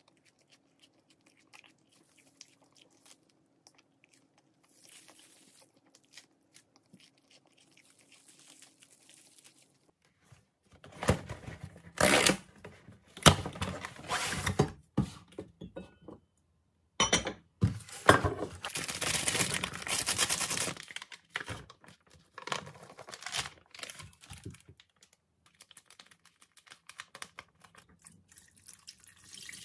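Cardboard meal-kit box being handled and its plastic packaging torn open: loud rustling, crinkling and tearing in spurts, between quieter light handling clicks.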